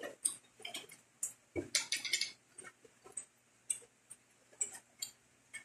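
Close-up eating sounds: scattered small clicks and mouth noises from chewing crispy fried pork, with a short denser crunchy burst about two seconds in.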